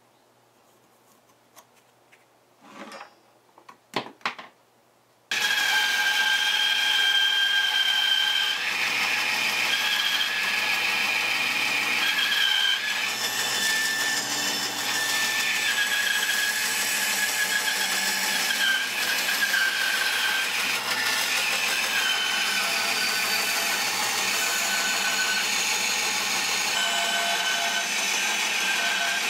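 Bandsaw cutting through a thick block of wood: a steady, loud rasp of the blade with a couple of whining tones that shift in pitch as the wood is fed. It starts abruptly about five seconds in, after a few faint short pencil strokes.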